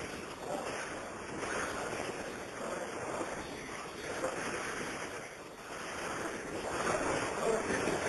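Rushing hiss of noise on a recorded telephone call, swelling and fading slowly, with no voices.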